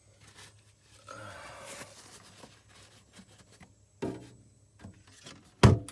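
Handling noise: a soft rustle, then a single sharp, loud knock near the end.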